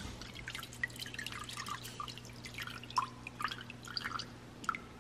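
Cleaning fluid dripping and plinking off a carburetor and its wire basket into an ultrasonic cleaner's tank, in many small irregular drops over a steady low hum.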